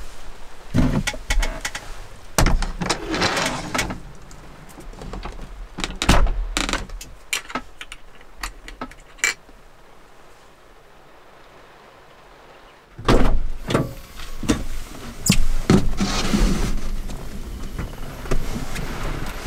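Clicks, knocks and rustling as a hinged wooden-framed camper window is pulled shut and latched, then a quiet stretch of steady rain patter. After that come louder thumps and rustling of someone moving about in a small truck's cab.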